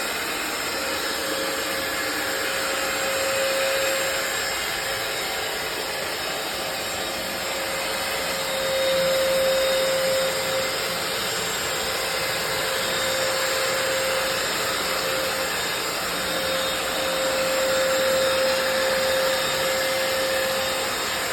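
Hoover FloorMate wet hard-floor cleaner running, its suction motor giving a steady whine over a rushing noise. The level swells and eases a little as it works the floor.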